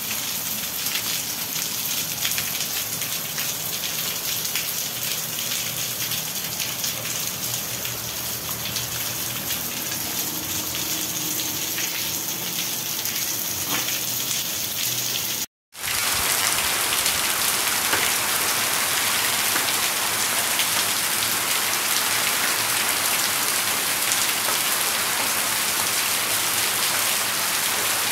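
Heavy rain pouring down, a steady dense hiss of falling water. About halfway through the sound cuts out for a moment and resumes a little louder.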